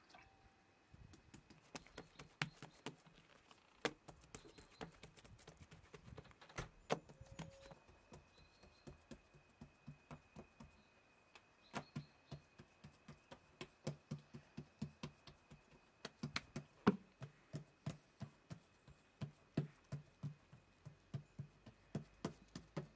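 Flatbread dough being handled on a cloth-covered table: faint soft pats and taps. They are scattered at first, then settle into a steady rhythm of about three a second from about halfway through, as the dough is shaped and pressed with a fork.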